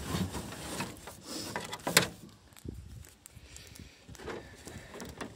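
Rubbing and knocking on a handheld camera's microphone, with one sharp knock about two seconds in.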